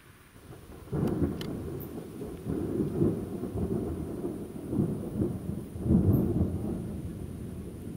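Thunder: a sudden sharp onset about a second in, then a long low rumble that swells twice more and dies down near the end.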